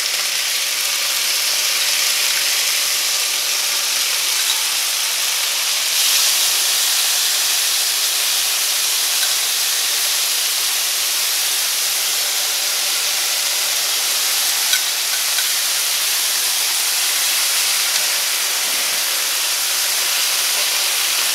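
Onion, red pepper and diced tomato sizzling steadily in hot cast iron skillets, a constant hiss of frying that grows a little louder about six seconds in.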